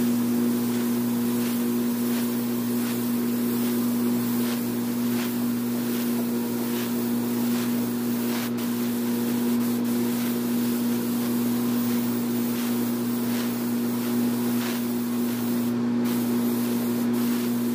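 Paint spray booth running: a steady mechanical hum from the booth fans under an even hiss of air from the compressed-air spray gun as a car bumper is sprayed.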